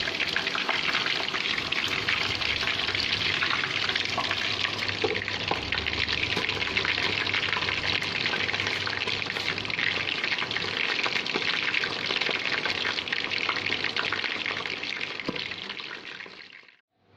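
Quail deep-frying in plenty of hot oil: a steady crackling sizzle that fades out near the end.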